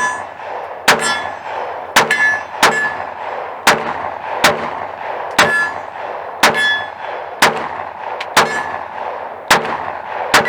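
Black Rain Ordnance Frontline 9mm pistol firing about eleven shots, roughly one a second, at steel targets. Many hits are followed by a short metallic ring of the plate.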